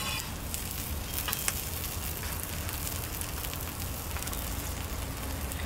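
Tortillas with brisket and cheese sizzling steadily in oil and butter on a hot flat-top griddle, with a few light clicks of a metal spatula on the steel about a second in.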